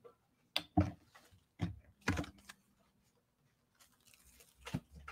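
A few short, sudden clicks and rustles of handling: leggings being folded and moved about, with a paper tag card set down on a tabletop. Four come within the first two seconds or so, and one more shortly before the end.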